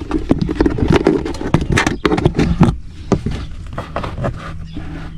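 Irregular plastic clicks, knocks and rattles as the glove box trim and its lock pieces are handled and fitted back into the dash, over low handling noise.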